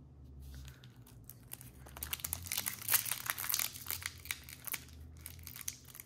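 Crinkling of a trading-card pack being handled: a run of small crackles that starts faint and grows denser about two seconds in.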